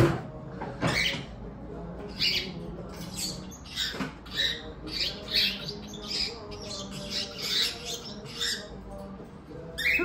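Cockatiel giving a string of short, high chirps in quick succession, starting about two seconds in and going on until near the end.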